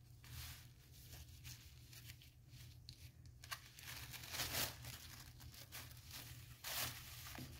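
Thin old sewing-pattern tissue paper crinkling and rustling as it is handled and pressed flat by hand, in irregular faint rustles with a couple of louder crinkles about four and a half seconds in and near the end.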